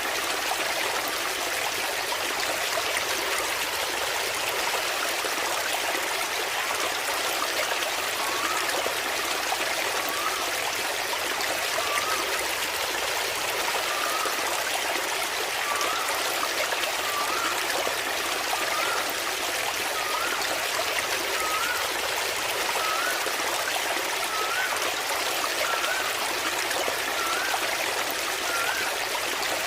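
Waterfall water running and splashing steadily. From about a third of the way in, a short rising chirp repeats about every second and a half over it.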